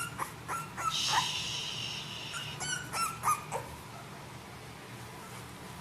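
Very young bulldog puppy whimpering and yipping: short high-pitched yelps in the first second, a longer high squeal from about one to two and a half seconds in, and a few more yelps around three seconds.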